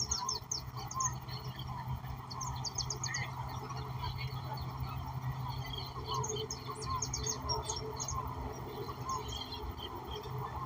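A mixed chorus of several birds: many quick high chirps and rapid trilled runs, with a shorter lower call repeated about twice a second, over a steady low drone.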